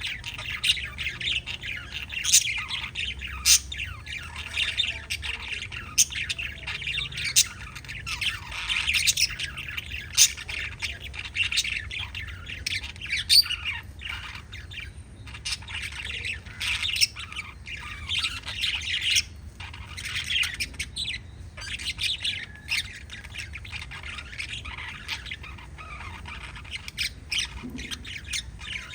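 Pet lovebirds chattering: a steady stream of high chirps broken by sharp squawks every second or two.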